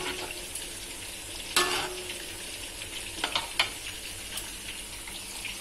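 Spatula stirring a thin rice-flour satay sauce in a hot metal wok, over a steady hiss from the pan. The spatula knocks and scrapes against the wok a few times, once about one and a half seconds in and twice more around three and a half seconds in.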